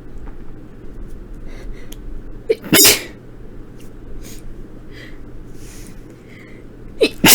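A woman sneezing while sick with a cold: one loud, sharp sneeze about two and a half seconds in, with faint breaths around it. A second sneeze starts right at the end. The sneezes are being deliberately induced.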